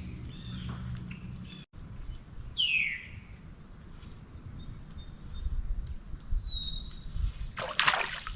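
Birds calling: three short whistled notes that slide down in pitch, a few seconds apart. A brief splash comes near the end.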